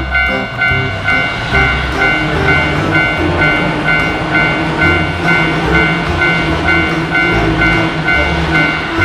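Japanese railroad crossing alarm ringing its rapid, even two-tone 'kan-kan' about three times a second, while a train passes with a rushing rumble that swells through the middle. Background music plays underneath.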